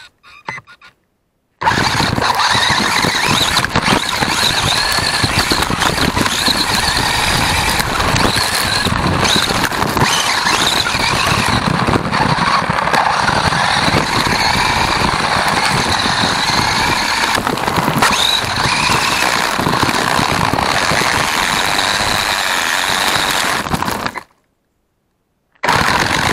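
WLtoys A959 1:18 RC buggy driven fast on gravel: the high whine of its electric motor and gears rises and falls with the throttle, over a steady crunch and rattle of gravel under the tyres. The sound drops out to silence for about a second shortly after the start and again near the end.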